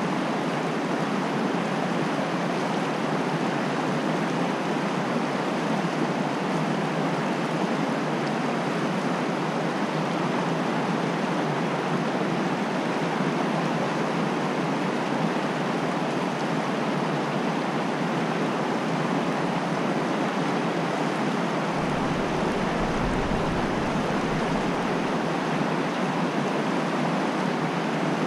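Fast-flowing creek water rushing steadily, an even hiss of current.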